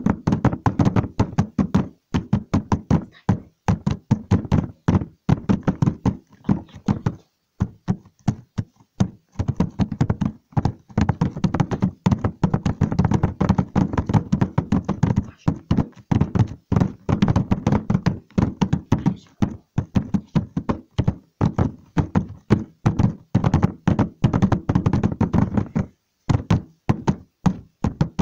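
A rapid, irregular run of knocks and taps, several a second, with short pauses about seven seconds in and again near the end.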